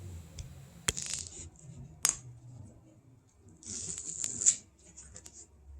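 A small square ruler clicking down on the work surface twice, then a pencil scratching a straight line along it on the back of the upholstery material.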